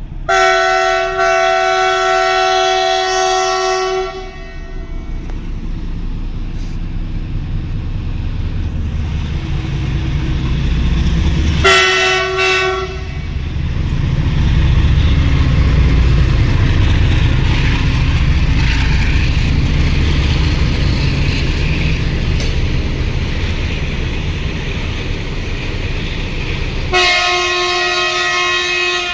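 Diesel goods train locomotive sounding its horn three times: a long blast of about four seconds at the start, a shorter one about halfway through, and another of about two seconds near the end. Between the blasts the engine and wagons keep up a steady low rumble as the train runs past.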